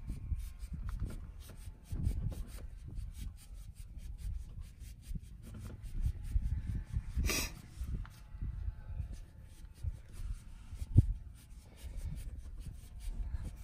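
Hands working the rim of a JL Audio 15-inch subwoofer grille, bending its edge inward so it will press-fit over the sub: uneven rubbing and handling noise of fingers on the metal mesh and rim. A brief scraping rustle comes about seven seconds in, and a sharp click near eleven seconds.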